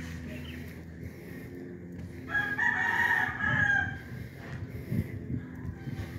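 A rooster crowing once, a pitched call of nearly two seconds starting about two seconds in, over a low steady hum.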